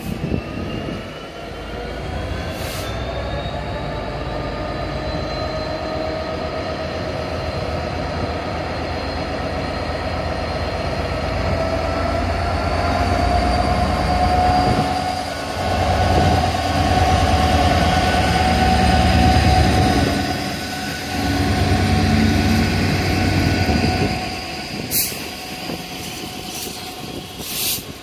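A train passing close by on the line. A whine rises over the first few seconds and then holds steady over a heavy rumble of wheels on rail. The rumble is loudest in the middle, fades after about 24 seconds, and two sharp clicks follow near the end.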